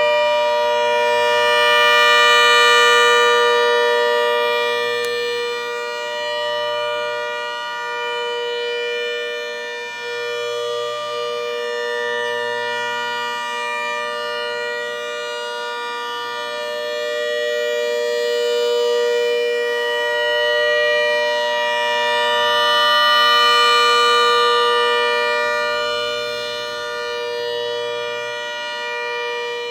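Mini Hurricane 130 siren sounding a steady, unwavering tone while its horn rotates, so the sound swells and fades about every 20 seconds as the horn sweeps past, running without its blower.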